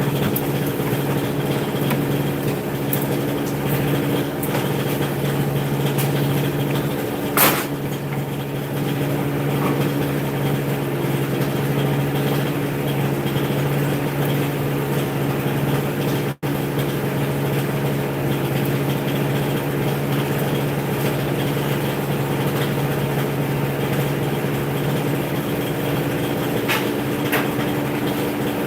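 An engine or motor running steadily with an even, low hum. A single sharp knock sounds about seven seconds in, and the sound cuts out for an instant just past halfway.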